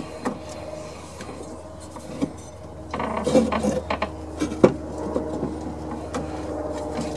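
Rotary lawn mower blade and crankshaft turned slowly by hand, spark plug out, while a wooden block is held against the blade tip to gauge a bent crankshaft. Scattered clicks and scraping of wood on metal, busiest about three seconds in, with one sharp knock shortly after.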